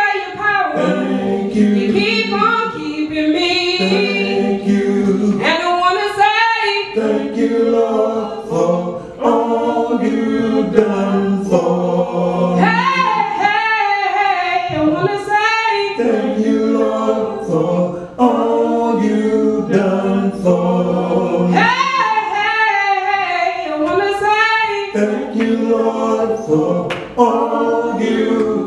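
A woman singing a gospel song of thanks into a handheld microphone, in long, sliding phrases, over sustained choir-like backing voices.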